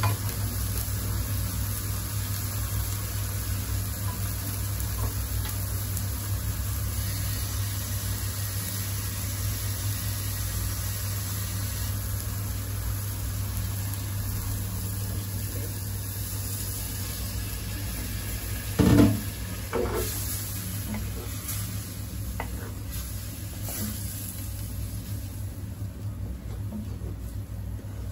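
Methi paneer curry sizzling in a nonstick pan as water is poured in, over a steady low hum, with one loud clunk about two-thirds of the way through.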